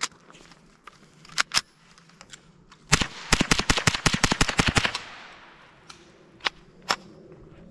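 Ruger 10/22 Takedown semi-automatic .22 rifle fired in a fast string, about fifteen shots in two seconds starting about three seconds in. A few single sharp cracks come before and after the string.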